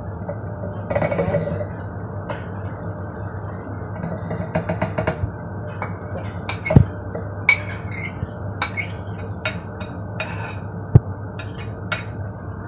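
Scattered light clinks and knocks as shallots, garlic and bay leaves are dropped by hand into a plastic blender jar and the plate taps against it, two of them sharper than the rest. A steady low hum runs underneath.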